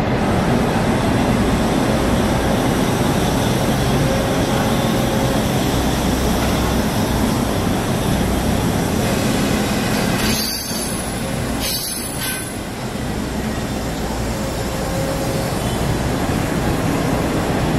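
Passenger train coaches rolling past at close range: a steady rumble of steel wheels on the rails, with a faint thin wheel squeal now and then. The sound dips briefly twice about two-thirds of the way through.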